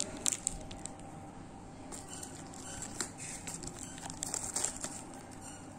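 Plastic wrapper of an Oreo biscuit packet crinkling and tearing as it is opened by hand. The crackles come in short spells, busiest about half a second in and again between four and five seconds in.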